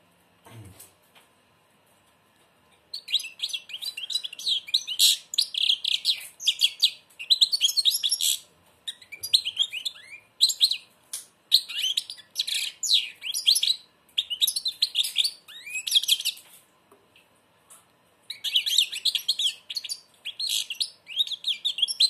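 European goldfinch singing in a cage: bursts of fast, high twittering song beginning about three seconds in, broken by short pauses, with a longer pause shortly before the last phrase.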